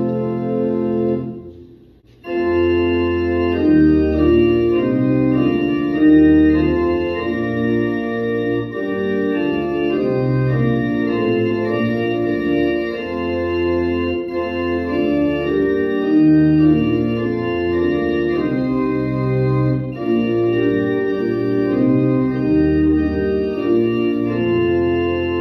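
Church organ playing sustained chords over a moving bass line, breaking off briefly about two seconds in before the next phrase starts.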